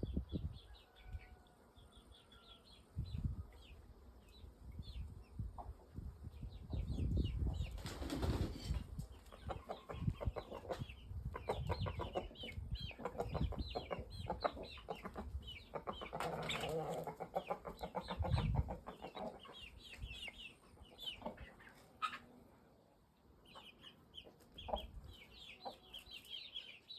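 Birds twittering in many short high chirps, with stretches of wing flapping and low thumps about a third of the way in and again past the middle.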